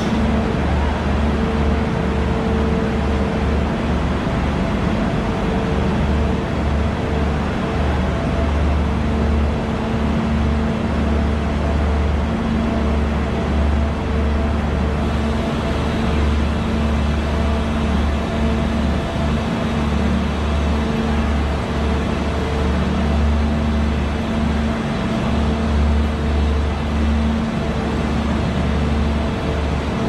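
Steady low drone of an idling train, a diesel engine or generator running without change, with a constant low hum and its overtones over a broad rumble.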